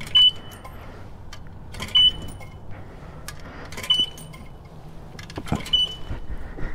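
Self-serve car wash coin box beeping: a short high beep about every two seconds, four times. Sharp metallic clicks come in between as coins are fed into the slot.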